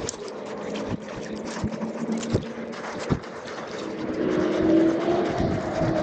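An engine approaching, its steady hum growing louder from about two-thirds of the way in, over wind on the microphone. A few small knocks come earlier on.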